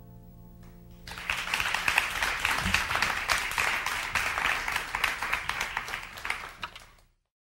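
The last held note of a song dies away, then an audience applauds from about a second in, the clapping fading and cutting off abruptly near the end.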